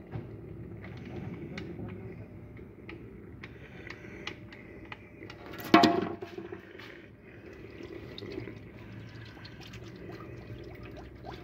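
Engine oil draining from the sump of a Renault Kangoo 1.5, a steady pouring trickle with scattered small clicks and one sharp knock about six seconds in.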